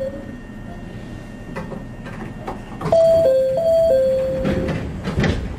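A four-note two-tone electronic chime, high-low-high with the last low note held, of the kind that comes before an announcement, sounding over the low hum of a standing train's cab. A few short knocks come near the end.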